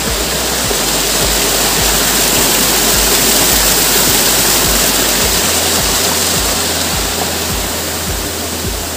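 A small stream rushing steadily, mixed with background music that has a steady low beat of about two pulses a second.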